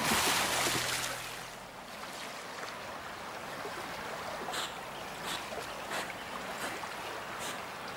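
Water rushing or splashing at first, dying away over about a second, then quiet lapping water with soft small splashes as a beaver swims.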